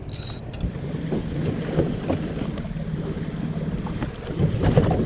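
Wind on the microphone and water washing against a small boat, over a steady low hum, with a louder rough burst about four and a half seconds in.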